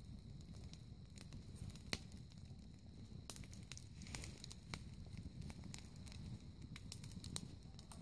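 Wood fire burning in a brick-lined fire pit, crackling with irregular sharp snaps and pops over a low steady rumble.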